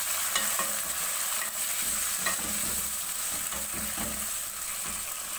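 Onions, tomatoes, green chillies and mint being stirred in hot oil in a pan: a steady sizzle, with the stirring utensil scraping or tapping against the pan now and then.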